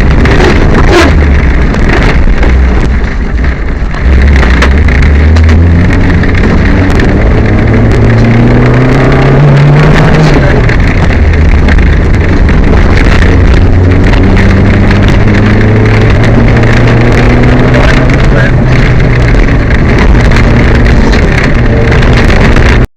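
Peugeot 205 rally car's engine running hard under load, heard from inside the car. Its pitch climbs to a peak about ten seconds in, drops sharply, then holds fairly steady, with many short sharp clicks and rattles over it. The car is running with a misfire.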